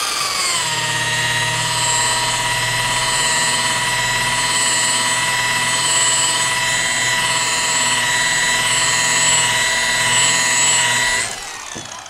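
Electric power tool motor running at a steady high-pitched whine, its pitch dipping a little just after it starts. About eleven seconds in it is switched off and winds down.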